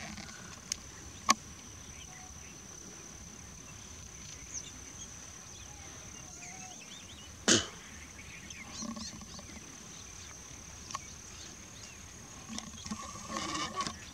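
Quiet outdoor ambience: a steady high-pitched whine throughout, two sharp clicks near the start, and a single brief loud noise about halfway through, with a few faint high chirps here and there.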